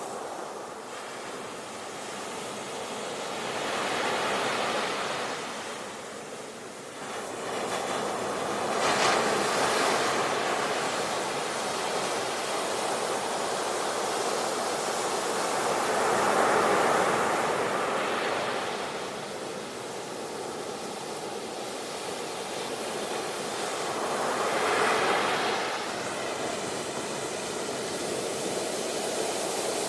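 Sea waves breaking and washing up the shore, the surf swelling and falling back in about four slow surges.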